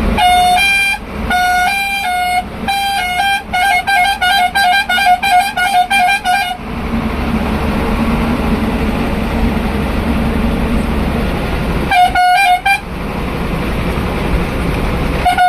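Volvo bus's multi-tone horn sounding in short two-note phrases, then a fast run of toots, about four a second for some three seconds. After that the steady drone of the moving bus's engine and road noise carries on, with another short two-note horn burst after a lull of about five seconds and a last one near the end.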